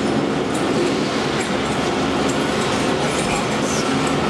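Whistler gondola cabin moving through a station: a steady mechanical rumble with a low hum and light clatter from the station's rail and drive machinery.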